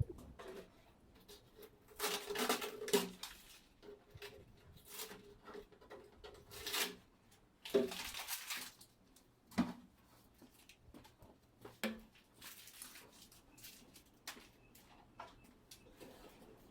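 Intermittent scraping and clattering knocks from cleaning out a chicken cage, with longer scrapes about two and eight seconds in among short knocks.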